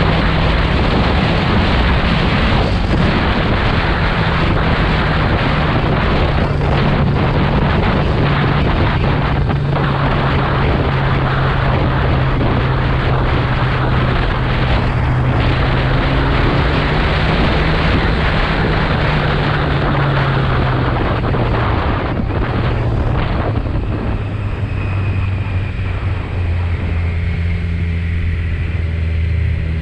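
Kawasaki motorcycle engine running at a steady cruising pace under heavy wind noise on the microphone. About three-quarters of the way through, the engine note drops lower and the wind eases as the bike slows.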